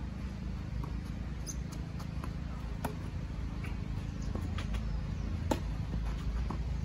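Tennis rally on a clay court: a string of sharp pops from the ball striking rackets and bouncing, the loudest about five and a half seconds in, over a steady low rumble.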